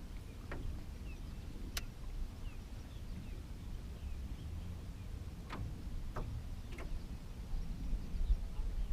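Outdoor lakeside ambience: a steady low rumble with faint bird chirps and about five sharp clicks scattered through it.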